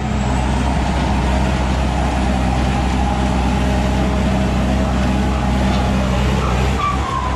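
Tracked rice combine harvester's engine running hard under load as the machine tries to climb out of deep mud onto a bank. It revs up right at the start and holds a steady, loud note, easing briefly near the end.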